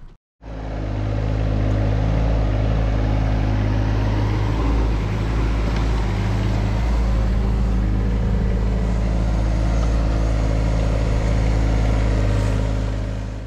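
Heavy diesel engine running at steady revs, an even low drone. It starts just after a short silence and fades out at the end.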